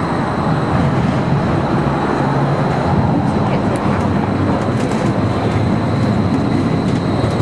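Steady street noise as a modern streetcar approaches along its rails.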